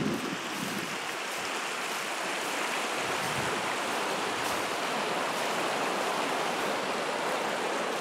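Muddy stream water rushing steadily down the channel as the pond behind a dynamited beaver dam drains out.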